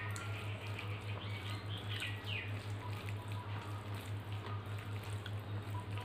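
Fingers kneading cooked rice and dal on a steel plate, giving soft wet squishing and light sticky clicks, loudest about a second or two in. Under it runs a steady low hum that pulses rapidly.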